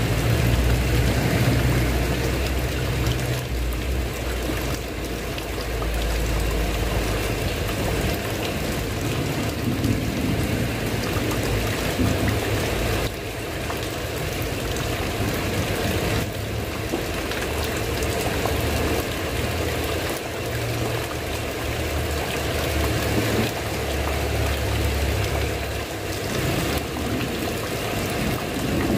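Steady rain falling on a tiled roof, an even hiss with no breaks. A low rumble sits under it for the first several seconds and again from about 20 to 26 seconds in.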